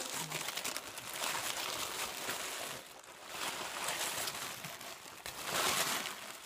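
Tissue paper and packaging rustling and crinkling as hands rummage through a box, in uneven waves with the loudest crinkling near the end.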